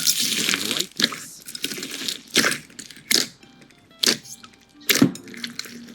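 A series of short, crisp crunching sounds, about one a second, over faint music.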